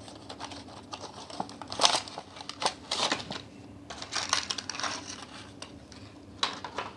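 Crinkling and crackling of a clear plastic blister pack being handled and pulled apart to free a toy jeep, in several bursts with short pauses between.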